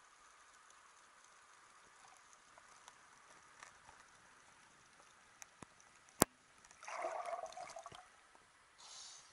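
Underwater ambience heard through a submerged camera: a faint steady hiss with scattered small clicks and one sharp click about six seconds in. About seven seconds in comes a second or so of bubbling and gurgling water, then a short splashy hiss near the end as the camera comes up to the surface.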